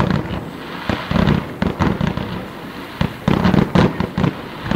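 Fireworks display: aerial shells bursting in quick succession, a run of loud bangs with dense crackling between them.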